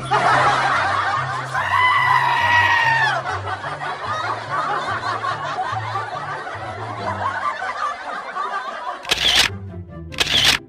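Background music with a repeating bass line, with laughter over it and a long held high note about two seconds in. Two short, loud hits come near the end.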